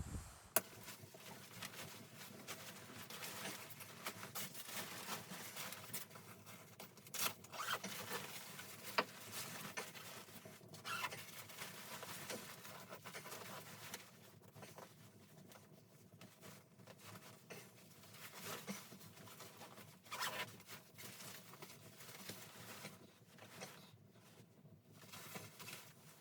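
Faint irregular clicks, taps and scraping rustles, with a few sharper taps scattered through, over a faint steady hum.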